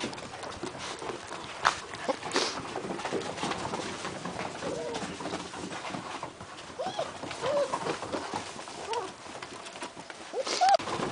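German Shepherd puppies about a month old giving short squeaky whines and yips, several times, mostly in the second half, with a few sharp taps earlier.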